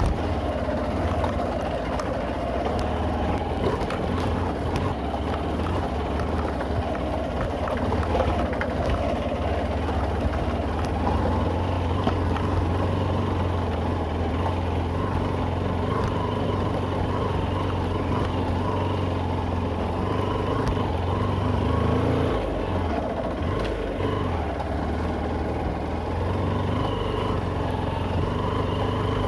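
Motorcycle engine running at a steady pace while riding over a rough, wet dirt track, with scattered clicks and knocks from the bumps.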